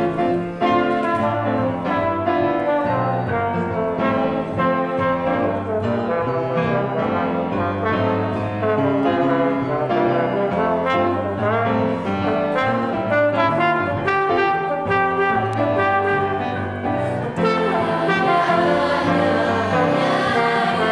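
Trombone playing a solo melody over grand piano accompaniment.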